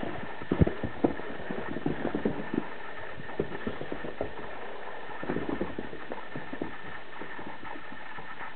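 A cat playing and pouncing close to the microphone: irregular soft thumps and scuffles that come in clusters, the loudest about half a second in, over a steady hiss.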